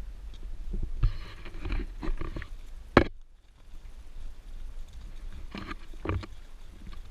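Crunching, scraping steps and handling knocks on a rocky trail, with a low rumble of wind and movement on the camera microphone; one sharp knock about three seconds in is the loudest sound.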